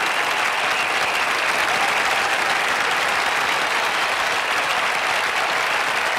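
A large crowd applauding steadily, with no break.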